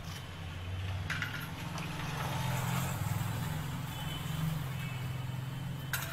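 A low, steady motor hum, a little louder in the middle, with two light clicks, one about a second in and one near the end.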